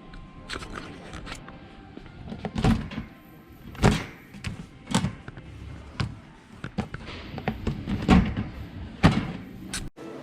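A series of irregular knocks and thumps, about a dozen, the loudest about four seconds in and again near eight and nine seconds.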